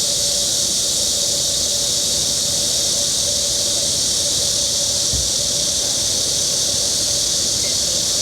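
Steady chorus of insects, a high, even hiss, with a steady lower tone underneath.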